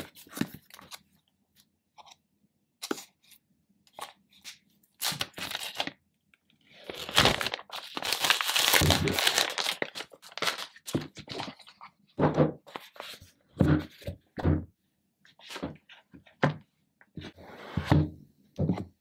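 Hands handling and opening a cardboard iPhone box: scattered taps, knocks and scrapes, with a few seconds of tearing and crinkling about seven seconds in.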